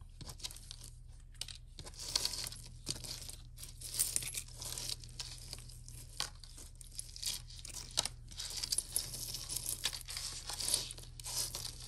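Irregular crinkling and rustling of packaging as jewelry pieces are handled, with small scattered clicks.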